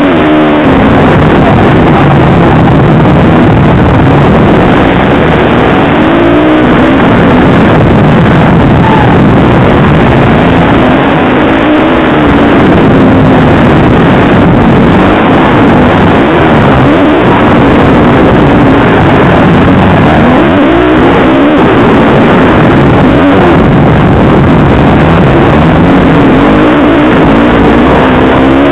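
Supermoto race motorcycle's engine at racing speed, its pitch climbing and falling again and again as the rider accelerates through the gears and backs off for corners, heard from a helmet camera. Loud throughout.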